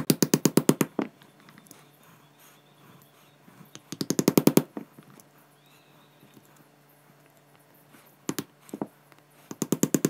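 Hammer striking a screwdriver set against the thin steel shunts of a microwave oven transformer to knock them out from between the windings: quick bursts of rapid taps, about ten a second, at the start, around four seconds in and at the end, with two single strikes just before the last burst.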